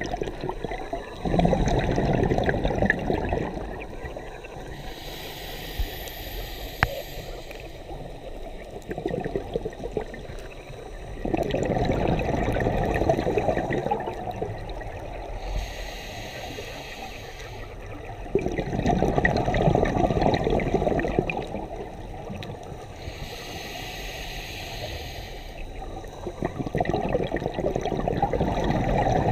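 Scuba diver's regulator breathing, heard underwater: a short hiss of inhaling through the demand valve alternates with a longer burbling rush of exhaled bubbles, about every seven to eight seconds. The cycle gives three inhales and four exhale bursts, the last running on at the end.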